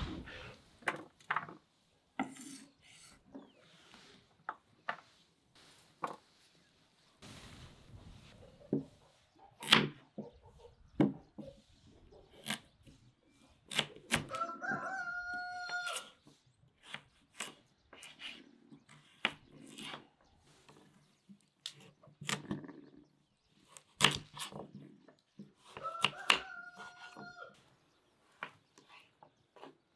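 A knife chopping carrots on a wooden cutting board in irregular sharp knocks. A rooster crows twice, about halfway through and again near the end.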